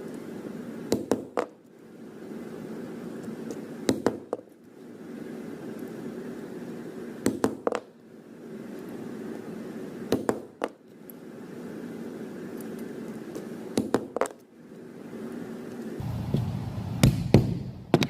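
Hammer striking a rivet setter to set spiked rivets into a leather dog collar: two or three sharp hits about every three seconds, one rivet after another. Near the end, a quick run of metallic clinks.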